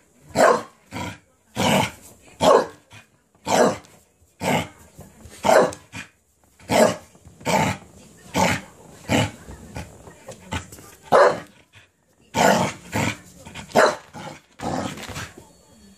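Cardigan Welsh Corgi barking over and over, about one or two sharp barks a second, some in quick pairs, worked up over a cabbage core.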